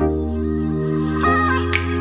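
Background music: held chords that change about every second, with a sharp percussion hit near the end.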